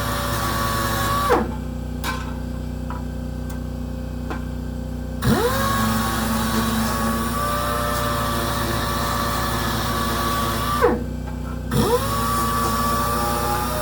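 Power sander running, shutting off about a second in and winding down, then silent apart from a few light clicks for about four seconds before spinning back up. It stops again near the end and starts up once more about a second later, over a steady low hum.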